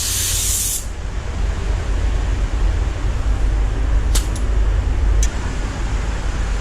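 DeVilbiss DV1 spray gun hissing as it sprays metallic base coat, shutting off just under a second in. A steady low rumble follows, with a few faint clicks around the middle.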